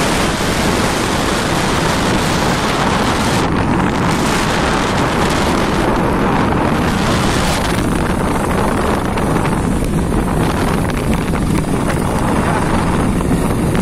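Steady wind rush on the microphone of a moving motorcycle, with the bike's engine running underneath.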